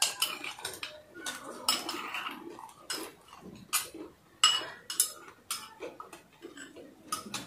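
Metal spoons clinking and scraping against small ceramic bowls as several people eat, in irregular sharp clicks with a few louder strikes.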